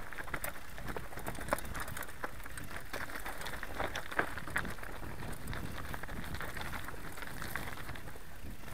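Mountain bike rolling fast down a loose rocky trail, heard from an onboard camera: tyres crunching over stones with many sharp clicks and rattles from the bike, over a steady low rumble.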